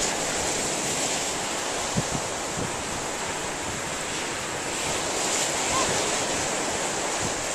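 Steady rush of ocean surf with wind blowing on the microphone.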